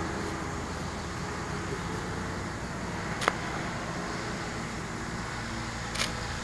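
Steady outdoor background noise with a faint low hum, broken by two sharp clicks, one about three seconds in and one near the end.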